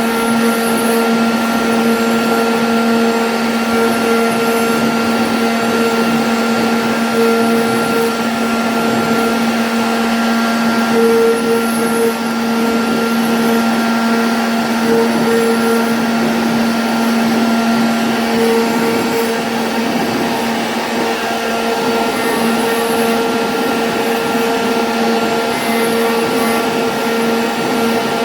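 CNC router spindle running and cutting MDF: a steady motor whine over the hiss of the bit cutting.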